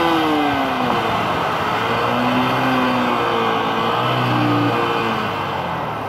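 Yamaha YBR 125G's single-cylinder four-stroke engine running under way. Its note drops in the first second as the throttle eases, then it pulls again with small rises and falls, over steady wind and road noise on the microphone.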